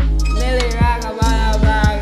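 Hip hop music: a beat with a deep sustained bass and regular hi-hats, with a wavering melodic line entering about half a second in. The bass drops out briefly about a second in.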